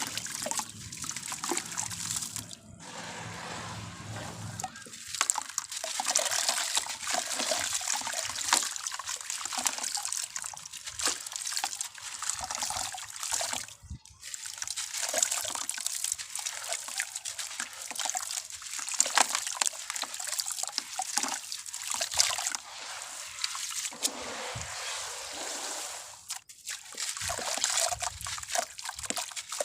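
Sand-and-cement mix crumbling into water: a dense, crackling fizz of many small ticks with trickling and sloshing, pausing briefly three times.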